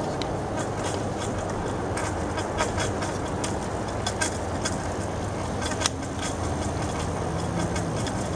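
Window air conditioner running, fitted with a replacement 35/6 µF dual run capacitor: a steady hum from its compressor and fan. Its plastic front grille clicks and taps repeatedly as it is handled and pushed into place.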